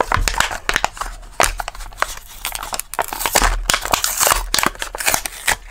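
A Matchbox die-cast car's blister card being opened by hand: plastic blister crinkling and card tearing, with many quick clicks and crackles. The car comes out of its packaging without much struggle.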